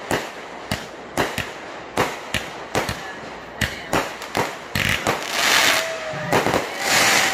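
Aerial fireworks going off: a run of sharp bangs at irregular spacing, about two or three a second, giving way from about five seconds in to a louder, continuous hissing crackle.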